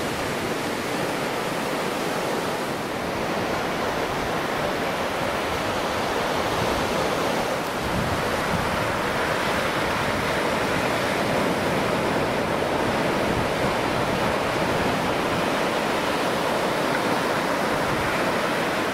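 Surf breaking on a sandy beach: a steady, even wash of waves.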